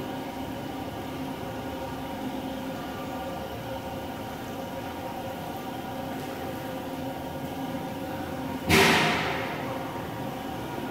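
Steady machine hum with several fixed tones, from the jacuzzi thermal pool's pump and jets, ringing in a tiled marble room. About nine seconds in, a sudden loud rushing burst fades away over about a second.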